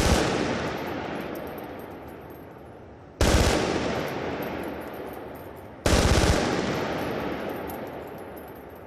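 Machine gun firing three short bursts, each trailing off in a long echo lasting a few seconds.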